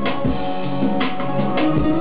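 Instrumental hip-hop beat playing: a drum pattern of kick and snare hits over held melodic notes.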